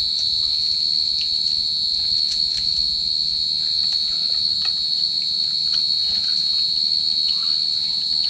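A chorus of crickets trilling, high-pitched and unbroken.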